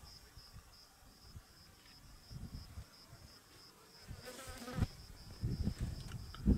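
An insect chirping steadily at a high pitch, about three to four chirps a second, with low wind rumble on the microphone and a brief buzz about four seconds in.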